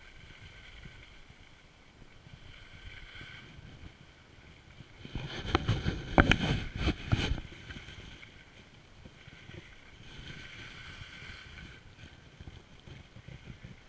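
A rider sliding down a packed, tracked ski piste: a steady scraping hiss of edges on snow, with wind on the microphone. About five seconds in comes a louder, rougher stretch of about two seconds of scraping and clattering knocks.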